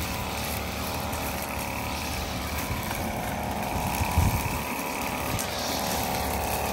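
Engine of a yard-clearing machine running steadily, with a short knock about four seconds in.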